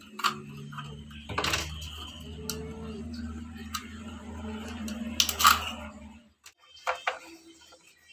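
Sharp plastic clicks and rattles from the red mounting clip of an STC-1000 digital thermostat controller being handled and pulled off, the loudest about five and a half seconds in. A low steady hum sits underneath and stops suddenly about six seconds in.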